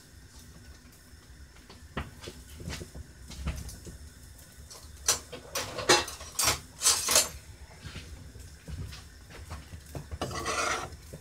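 Kitchen clatter: pans and utensils being handled, with scattered clicks and knocks and a cluster of sharper clatters about five to seven seconds in. There is a short rasping sound near the end.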